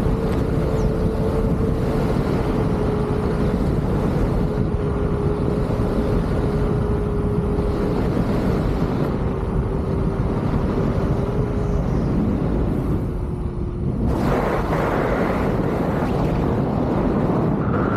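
Wind rushing over the microphone while riding an electric unicycle, with a steady whine from the wheel that drops a little in pitch and stops about 14 seconds in. From then on the wind noise is louder and brighter.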